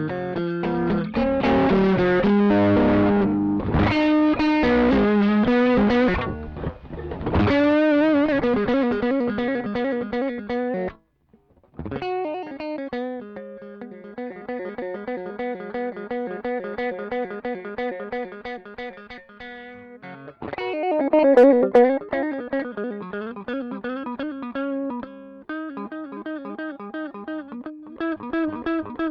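Electric guitar through a Caline 'British Sound' overdrive pedal, playing a looped part back through the pedal. The first several seconds are loud, full chords. After a short break about eleven seconds in, a lighter, quickly picked passage follows.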